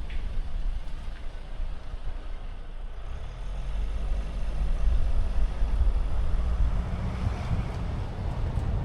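Kia Sportage driving along a road: a steady low rumble of engine, tyres and wind, getting louder about three seconds in.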